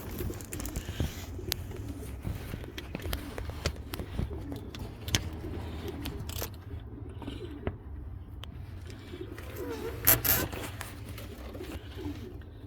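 Pigeons cooing in a loft, a low steady murmur, with scattered small clicks and a louder knock about ten seconds in.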